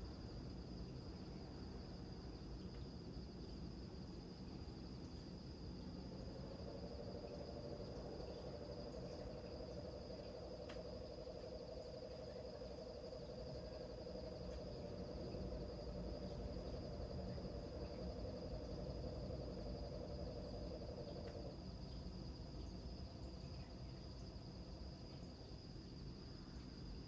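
A frog gives one long, low pulsing trill lasting about fifteen seconds, starting about six seconds in. Underneath is steady high-pitched cricket chirring and a low rumble of surf.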